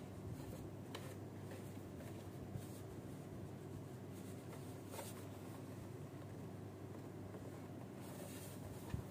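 Faint rustling and a few light clicks of hands handling a bazooka bubble-gun toy and its packaging, over a steady low hum.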